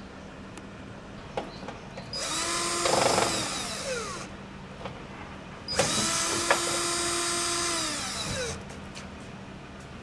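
Cordless drill-driver running in two bursts, one of about two seconds and one of about three, each ending with the motor winding down in pitch as it turns screws on an air-conditioner outdoor unit's fan grille.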